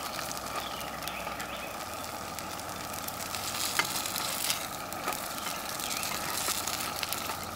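Potato cakes sizzling in oil in a steel camp pan over a gas camp stove, a steady frying hiss. A few light ticks come in the middle, from the plastic spatula against the pan.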